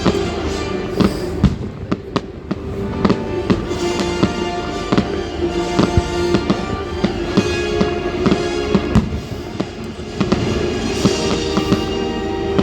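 Fireworks going off in quick succession, many sharp bangs and crackles, with music playing throughout.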